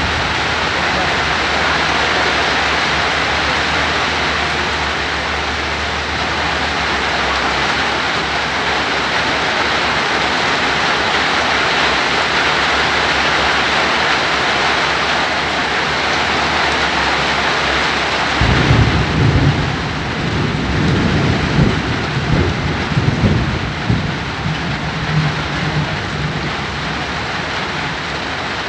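Heavy downpour of rain, a dense steady hiss. About two-thirds of the way in, an uneven low rumbling joins it and rises and falls in surges.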